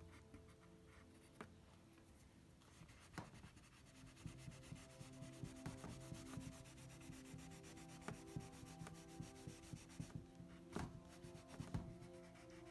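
Black drawing stick rubbing and scratching across a pad of drawing paper in short, quick shading strokes. The sound is faint, and the strokes come thicker from about three seconds in.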